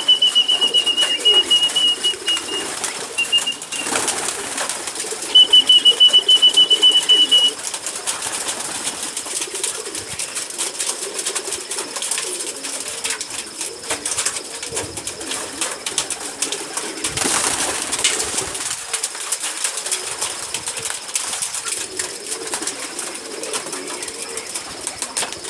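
Pigeons cooing with low murmurs, mixed with scattered clicks and wing flutters. A high, even trill sounds twice in the first eight seconds and is the loudest part.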